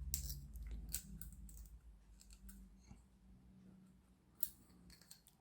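Faint, scattered clicks and taps of small metal and plastic torch parts being handled: the coil spring and the torch's casing.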